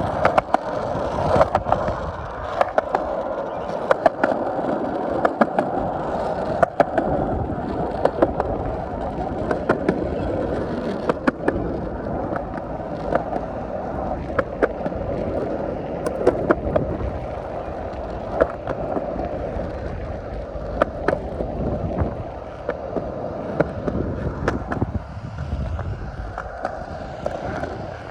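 Skateboard wheels rolling on pavement: a steady rumble broken by frequent sharp, irregular clicks.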